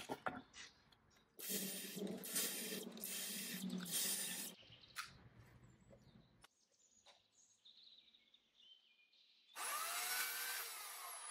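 Cordless drill driving screws into wooden sleeper blocks, running in a few pulses for about three seconds. Near the end a different, louder whirring sound starts.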